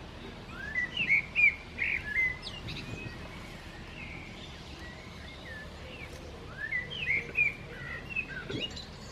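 A songbird singing two short phrases of quick, chirping, sliding notes, about five seconds apart, over faint steady outdoor background noise.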